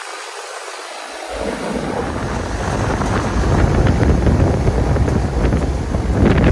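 Wind gusting on the microphone, a low irregular rumble that starts about a second in and grows louder, over the steady rush of a Carrier rooftop air-conditioning unit running.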